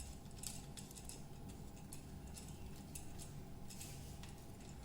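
Faint, scattered small clicks of a screwdriver tightening the terminal screw on a wall switch to clamp the live wire.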